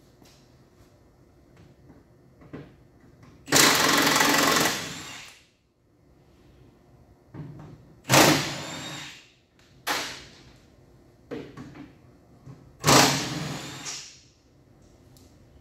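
Power impact wrench running in four bursts as it undoes the battery pack's mounting bolts: a long run a few seconds in, two close together past the middle, and a last one near the end, with lighter knocks of tool and bolt handling between.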